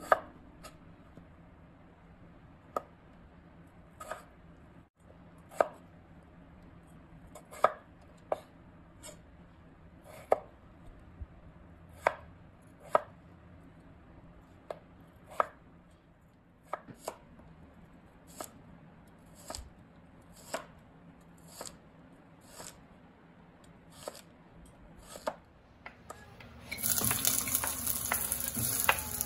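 Chef's knife chopping a potato into cubes on a wooden cutting board: separate, unhurried knocks of the blade on the board, about one a second. Near the end, chopped onion starts sizzling in hot oil in a pot.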